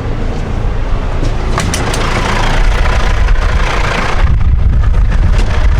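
Tractor engine running steadily with a John Deere 535 round baler working behind it, as the baler starts wrapping twine on a bale only 3 feet across. A few clicks come about one and a half seconds in, and a hissing rattle runs from about two to four seconds.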